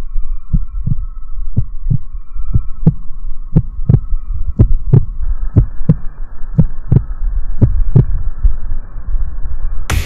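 Heartbeat sound effect: loud, low lub-dub thumps in pairs about once a second, over a faint steady hum.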